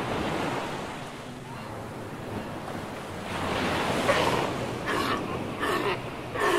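Surf washing up a shingle beach. From about three seconds in, South American sea lions in the colony give several short, loud calls.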